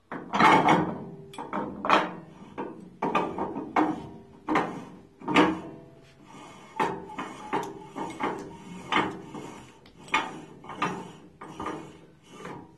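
Threaded brass die ring being screwed by hand onto the extrusion head of a Rosito Bisani pasta extruder: a run of metallic scrapes and clicks, one or two a second, some with a short metallic ring, as the threads turn and the die seats.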